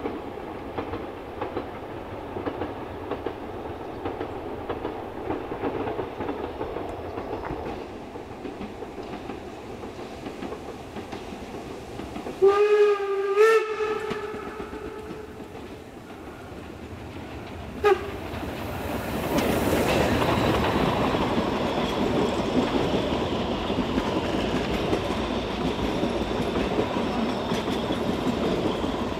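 Narrow-gauge steam tank locomotive 99 1734 running with a passenger train, its exhaust puffing steadily. A little past halfway its steam whistle gives two short blasts and then one brief toot a few seconds later. After that the train passes close, and the puffing and the rolling of the coaches grow louder.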